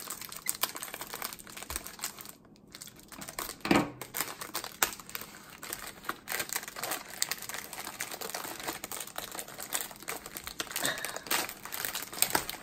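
Cookie-box packaging being cut with scissors and pulled open by hand: a run of short crinkling and crackling noises with some tearing, a brief lull about two and a half seconds in and one louder crunch just before four seconds.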